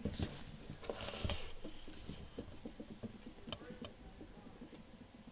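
Faint scattered clicks and light knocks of a small acrylic robot chassis being handled and turned around in the hands, with a slightly louder clatter about a second in.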